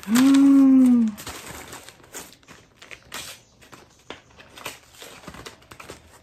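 A woman's drawn-out vocal sound for about the first second, then gift wrapping rustling and crinkling in irregular bursts of handling as a present is unwrapped.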